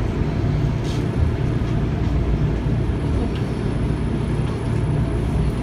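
Enshu Railway red electric train running on the track: a steady low rumble with no distinct wheel clacks. A faint high whine joins about three seconds in.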